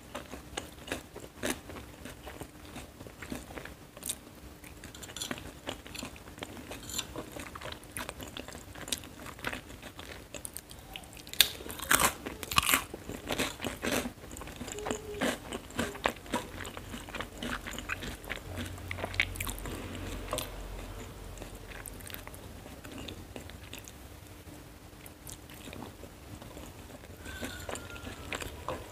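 Close-up chewing and biting of fried noodles, with wet mouth sounds and crunchy bites, and short clicks of a fork against the plate. A cluster of louder crunches comes about halfway through.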